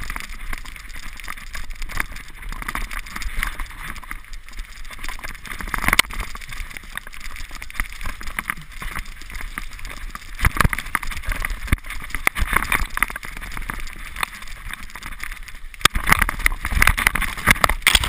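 Mountain bike ridden fast down a dirt trail, heard from a camera mounted on the rider: wind buffeting the microphone and a constant clatter of knocks and rattles over bumps, louder and busier for the last two seconds or so.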